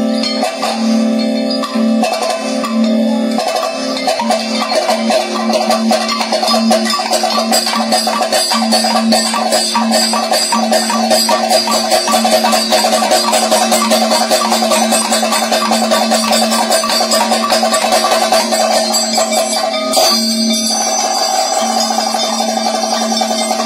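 Kathakali percussion accompaniment: a chenda drum beaten rapidly with sticks over steady ringing tones. The strokes grow dense and fast after a few seconds, with a brief break about 20 seconds in.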